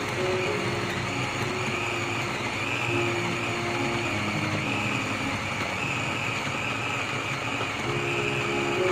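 Electric food chopper's motor running steadily, its blades grinding raw pork into a meatball paste in a glass bowl, with a high whine that wavers slightly.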